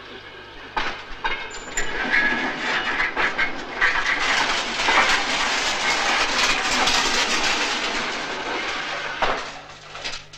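Railway sound from a film soundtrack: wheels of a rail vehicle clacking and rattling over the track, dense with sharp clicks and a noisy rumble, treated as part of the film's sound design. It fades off sharply near the end.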